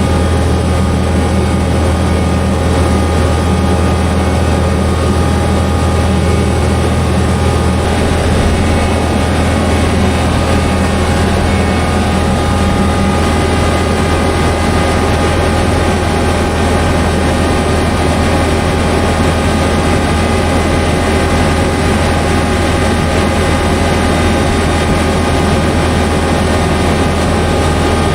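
A cotton stripper's diesel engine running steadily under load, a loud low hum with a steady whine of higher tones over it. About halfway through, part of the low hum drops away.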